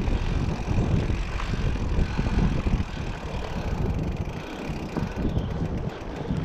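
Wind buffeting the microphone in uneven gusts while riding a bicycle.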